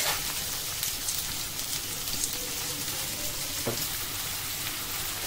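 Chopped onions sizzling in hot oil in a nonstick kadhai, a steady crackling hiss, with a spatula knocking against the pan a couple of times as they are stirred.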